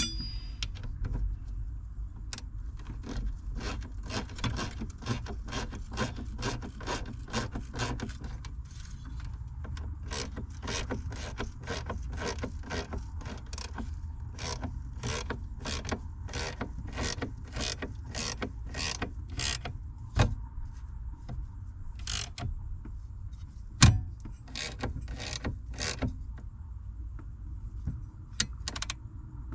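Hand ratchet wrench clicking in long runs of about two or three clicks a second, with short pauses, and a few louder metal knocks of tools against metal.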